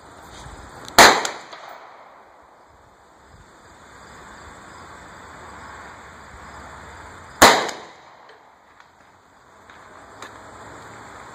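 Two shots from a Hi-Point .40 S&W carbine, about six seconds apart, each a sharp crack with a short echo.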